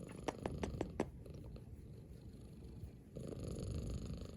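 A domestic cat purring, a low steady rumble that grows louder about three seconds in, after a few faint clicks in the first second.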